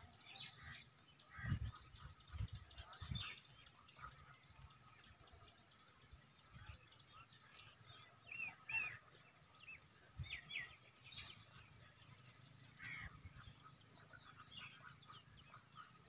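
Faint outdoor ambience with small birds chirping now and then, short high chirps scattered through, and a few soft low thuds in the first few seconds.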